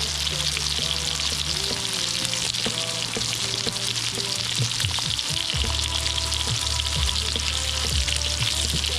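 Background music with melody and bass notes over a steady, dense crackling hiss.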